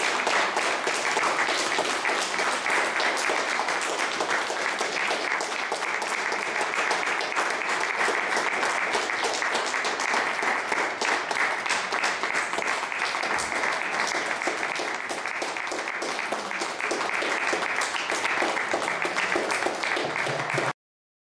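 Audience applauding steadily with many hands clapping, then cutting off abruptly near the end.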